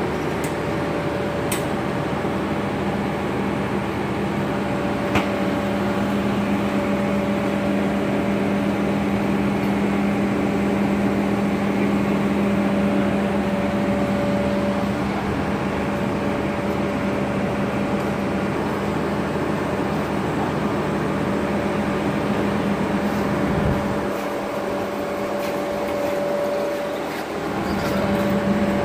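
Steady mechanical hum with a constant low tone and a fainter higher one; the low part drops away for a few seconds near the end.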